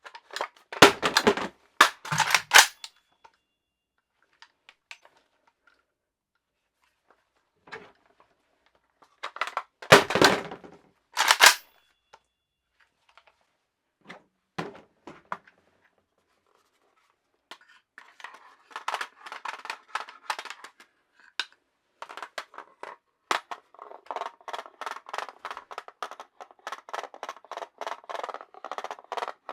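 Mechanical handling noises of a PSA Soviet Arms AKS-74U Krinkov-pattern pistol: two loud bursts of sharp metal clacks, about a second in and again about ten seconds in. From about eighteen seconds on comes a long run of small rapid clicks and rattles.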